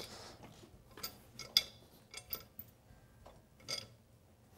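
Faint, scattered metal clicks and light knocks, about half a dozen, as the UTV's transmission is shifted by hand and the clutch centering tool's bolt is worked into line.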